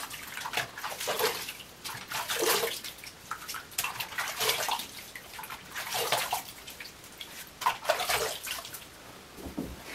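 Face being rinsed over a bathroom sink after a wet shave, water splashed up onto the face to wash off the leftover lather: a string of about ten uneven splashes, roughly one a second.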